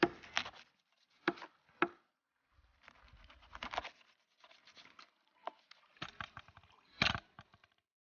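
Knife cutting a scaled fish into pieces on a wooden board: sharp, irregular knocks of the blade striking the wood, with softer scraping between them and the loudest knock near the end.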